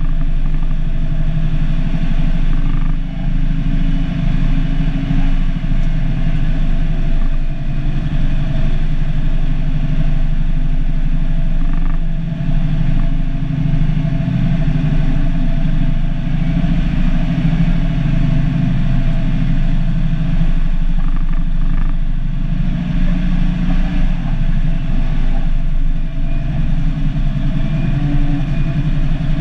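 Cummins NH-180 turbocharged inline-six diesel of an International F-210D dump truck running steadily under way on a dirt road, heard from inside the cab as a constant low drone.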